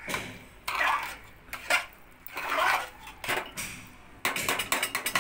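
Long metal spoon scraping and clinking against the inside of an aluminium pressure cooker while stirring a thick rice-and-lentil mixture, in repeated strokes about once a second, with a quicker run of clicks near the end.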